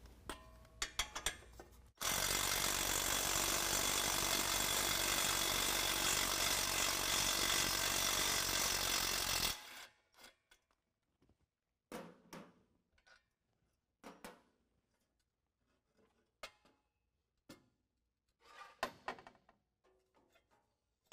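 Cordless electric impact driver running for about seven seconds, backing out the exhaust coupler bolts. It starts and stops abruptly. Afterwards come scattered light clinks and knocks of metal exhaust parts being handled as the resonator comes off.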